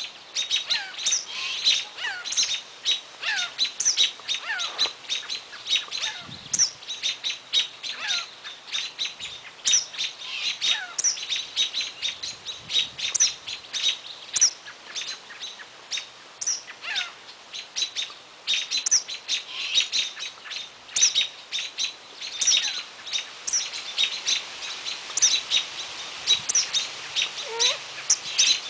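Small songbirds chirping and calling: many short, high notes in quick succession, some of them sliding down in pitch.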